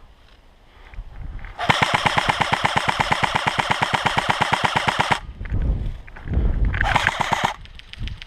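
Airsoft electric gun firing on full auto: a rapid, even stream of shots lasting about three and a half seconds, then a second, shorter burst about a second and a half later.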